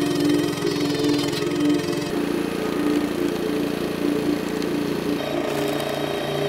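Small gas engine of a hydraulic log splitter running steadily as the ram drives a log onto the wedge. Its drone changes abruptly about two and five seconds in.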